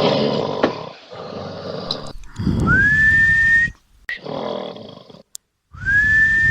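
A man snoring loudly in a row of rasping snores. Two of them, about two and a half seconds in and near the end, carry a whistle that slides up and then holds.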